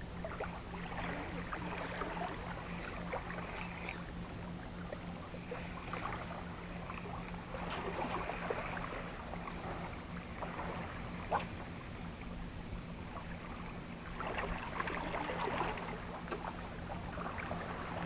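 Small waves lapping and sloshing against breakwater rocks, swelling in surges a few seconds apart, over a steady low hum and a few faint clicks.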